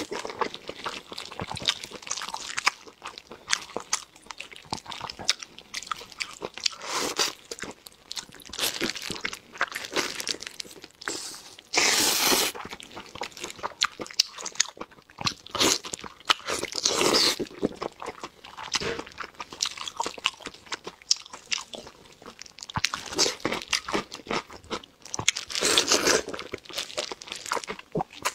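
Close-miked eating sounds: a person biting, chewing and sucking on sauce-coated braised meat, with wet mouth clicks and smacks throughout and a few louder bites or slurps along the way.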